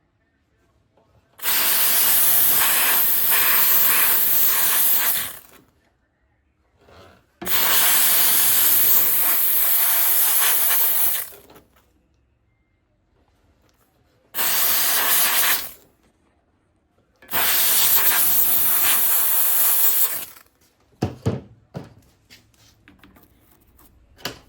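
Handheld Harbor Freight steam cleaner blasting steam in four long bursts of hiss, each a few seconds with short pauses between them. A few light knocks and scrapes follow near the end.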